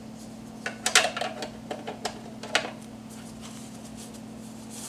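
Light clicks and taps of hard plastic coffee-maker accessory parts being handled: a quick cluster about a second in, then single taps about two and two and a half seconds in, over a steady low electrical hum.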